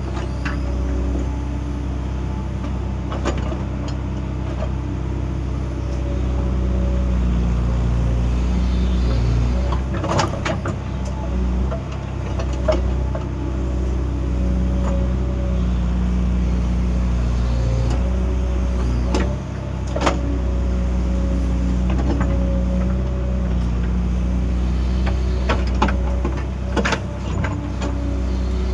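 Excavator's diesel engine running steadily under load, with a high hydraulic whine and occasional sharp knocks and clanks from the machine at work.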